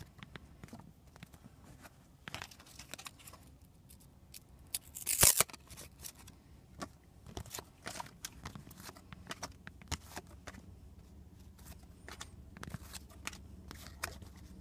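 Stack of basketball trading cards being flipped through by hand: cards sliding and ticking against one another in a run of small clicks and scrapes, with one louder brushing scrape about five seconds in.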